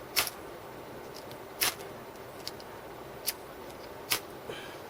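Ferro rod scraped with a paracord bracelet's plastic buckle to throw sparks: four sharp, brief scrapes at uneven intervals of about a second, with a few fainter ones between.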